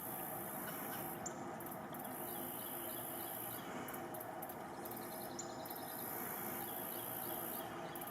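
Insects buzzing and chirping in a steady outdoor ambience. A high continuous buzz stops briefly a few times, and runs of faint quick chirps come in about a third of the way in and again near the end.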